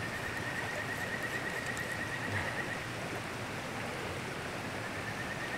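A river flowing steadily, with a thin, high, pulsing trill running through it.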